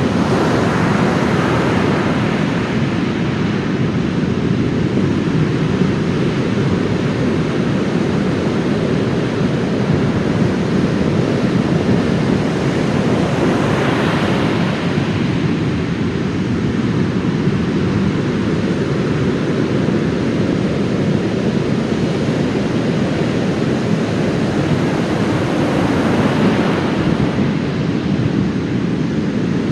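Heavy storm surf breaking on a sand beach after a typhoon: a continuous loud rush of waves, with breakers crashing in about a second in, around the middle, and again near the end.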